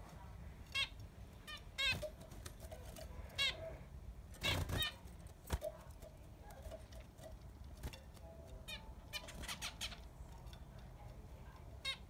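Zebra finches calling: scattered short, high, repeated calls through the aviary, with one louder burst about four and a half seconds in.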